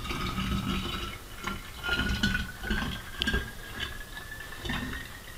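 Liquid poured from a small glass jug into a narrow glass bottle: a thin tone rises slowly in pitch as the bottle fills, with a few light clinks of glass on glass.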